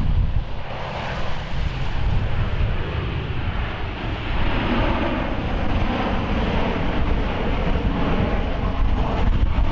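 Jet airliner engines, a steady rush of jet noise with a faint high whine that drifts slightly lower in the second half. Wind rumbles on the microphone underneath.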